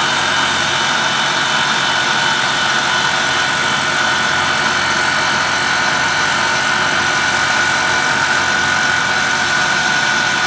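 Machine tool running steadily while a gear is machined, with a constant high whine over a continuous mechanical hum.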